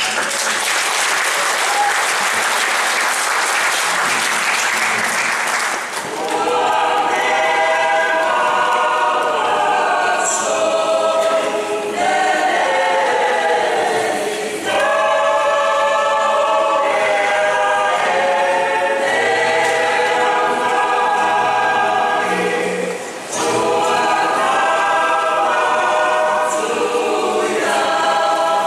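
Audience applause for the first six seconds or so, then a mixed choir of men, women and children singing unaccompanied in harmony, with short breaths between phrases.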